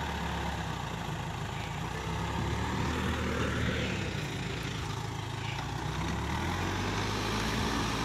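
Case 580K backhoe loader's diesel engine running steadily while the front loader bucket works loose earth and the machine backs away.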